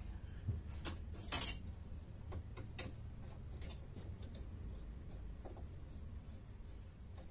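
Scattered light clicks and knocks of a bolt and small metal hardware being handled while a horn is fitted on a workbench, with one short scrape about a second and a half in.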